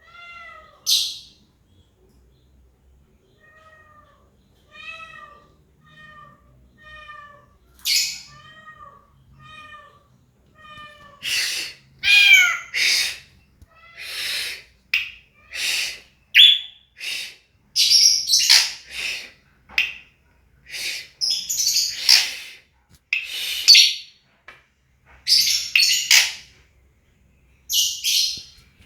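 A bird known locally as saeran, calling. First comes a string of short pitched notes about one a second. From about halfway in come louder, rapid, harsher high phrases.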